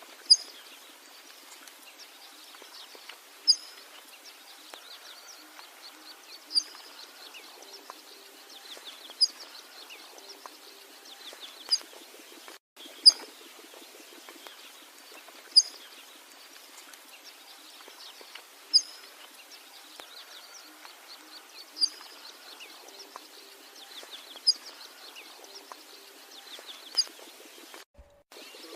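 A loud, short, high-pitched bird call repeated about every three seconds, over a steady background chorus of other birds and insects.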